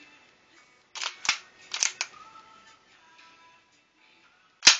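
Metal slide and action of a full-metal 1911 gas blowback airsoft pistol clacking as it is worked: a quick run of sharp clacks about a second in, and one more, loud one near the end. Faint music plays underneath.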